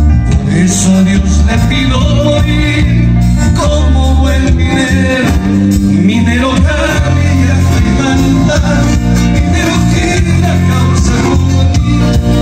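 Live band playing loud, bass-heavy music through a stage PA: a male singer over electric guitar, keyboard and drums.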